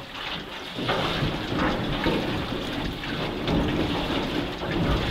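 River water rushing around a raft built of barrels: a loud, steady rush.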